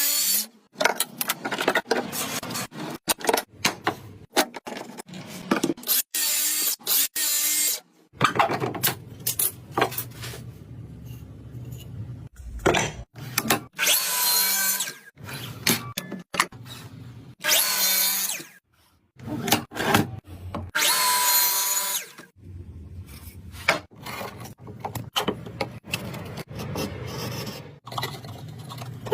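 Power tools working wood: repeated bursts of a motor running under load as it cuts, drills or sands, starting and stopping abruptly, with quieter scraping and rubbing between them.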